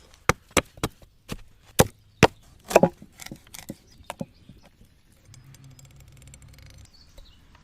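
Chopping with a blade on wood: about seven sharp strikes in the first three seconds, then a few lighter knocks. A faint low steady hum follows near the end.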